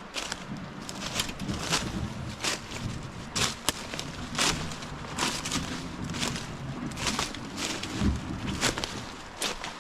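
Footsteps on rough ground: uneven scuffing steps, about one to two a second, over a steady outdoor hiss.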